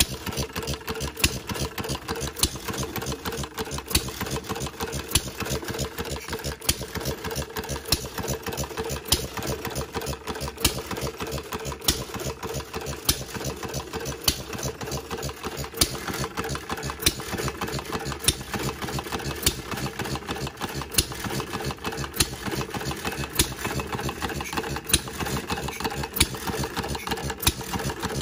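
Model Fuller & Johnson hit-and-miss gas engine running, with a rapid steady clatter from its valve gear and governor and a sharper bang about every second and a half as it fires.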